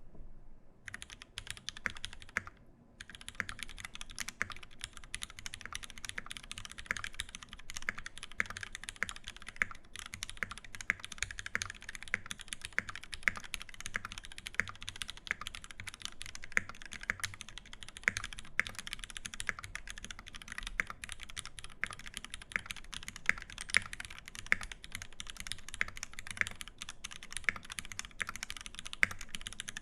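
Fast, continuous typing on a Constellation mechanical keyboard with lubed Cherry MX Vintage Black linear switches, a brass plate, an O-ring gasket mount and GMK keycaps. The typing starts about a second in, pauses briefly near three seconds, then runs on without a break.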